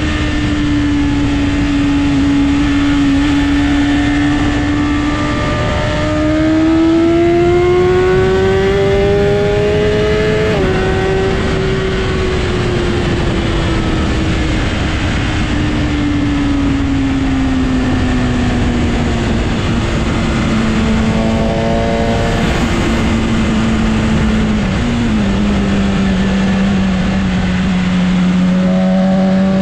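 Superbike engine under way over heavy wind rush. Its pitch climbs as it accelerates from about six seconds in, drops suddenly at a gear change, then sinks slowly as the bike eases off.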